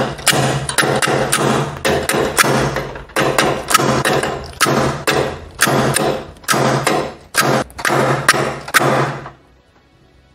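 Slide-hammer puller knocking the lower steering-head bearing race out of a Bajaj Pulsar NS 200's frame: a run of sharp metal knocks, about three a second, that stops near the end. The race is tight and hard to pull.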